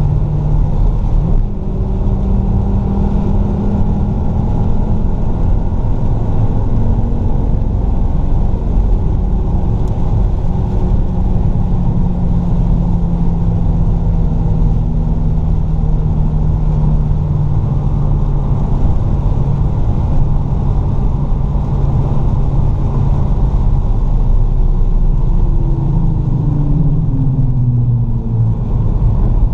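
Fiat Stilo Abarth's 2.4-litre five-cylinder engine pulling at fairly steady revs, heard from inside the car, with the pitch sagging slowly and then shifting near the end. Tyre and road rumble from the wet track runs underneath.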